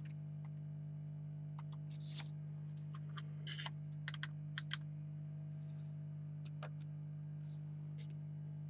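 A steady low electrical hum with a scatter of short, irregular light clicks and taps, bunched together in the middle.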